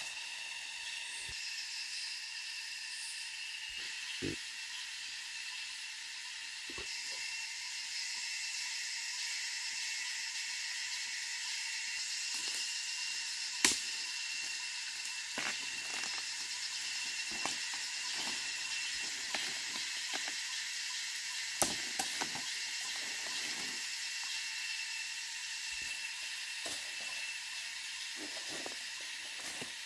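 Steady forest insect hum and hiss, with scattered snaps and rustles of footsteps through leaf litter and undergrowth. The sharpest snaps come about 14 seconds in and again around 22 seconds.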